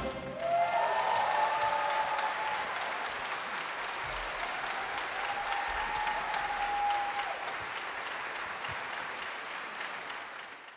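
Concert audience applauding once the song has finished, the clapping fading away near the end.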